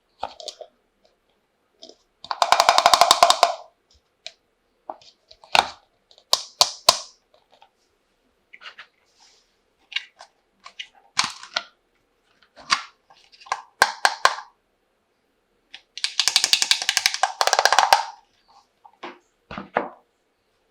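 Small plastic toy kitchen pieces being handled: scattered clicks and knocks, with two bursts of fast rattling, one about two seconds in and a longer one near sixteen seconds.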